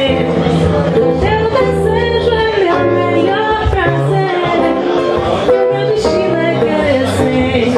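A woman singing a song to acoustic guitar accompaniment, her voice carrying a moving melody over the guitar's low notes.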